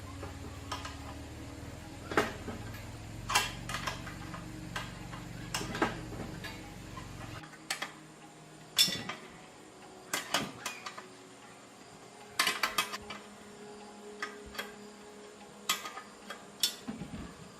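Metal tools and parts clinking and knocking in a run of sharp taps at uneven intervals, with a low steady hum underneath that cuts off about seven seconds in.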